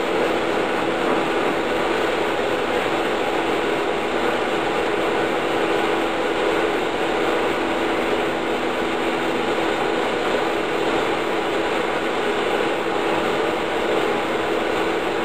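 Steady running hum of machinery at the CNC router, an even whir with one constant low tone that neither rises nor falls.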